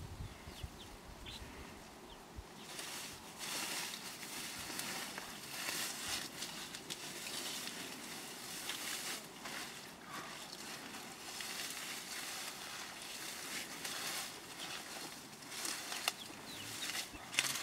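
Dry grass and dried animal dung rustling and scraping as they are scooped up by hand, in short irregular strokes.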